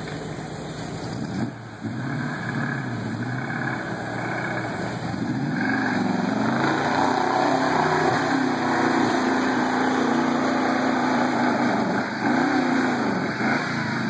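1979 Ford Bronco's V8 engine revving as the truck crawls down into and through a deep dirt rut. The engine note rises and falls with the throttle and gets louder about halfway through, then gives a couple of quick blips near the end.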